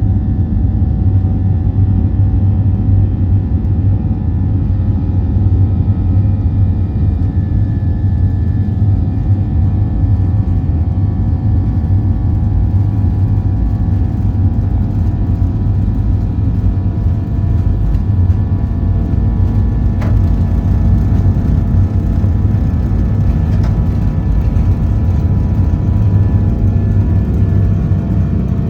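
Cabin noise of a Boeing 737-800 at takeoff thrust: its CFM56 engines and the rushing air make a loud, steady low rumble with several steady whining tones above it. A single short click sounds about twenty seconds in.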